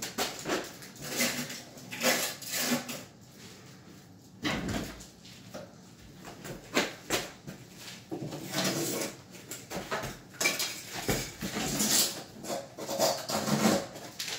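Irregular knocks, clunks and scraping of wooden cabinet parts being handled and fitted during a cabinet installation.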